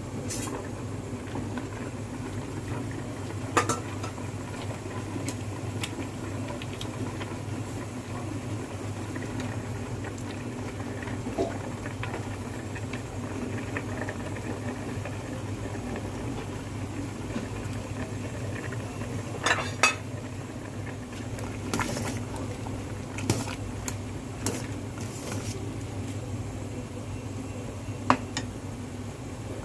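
Kitchen utensils clinking against cookware: about a dozen sharp clinks at irregular intervals, the loudest pair about two-thirds of the way in, over a steady low hum.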